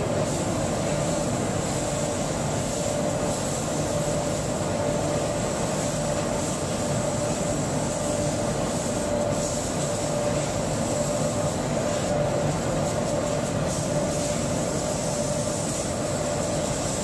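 Four-head, two-gantry laser cutting machine running while cutting: a steady mechanical whir of the moving heads and gantries, with a faint high whine over it.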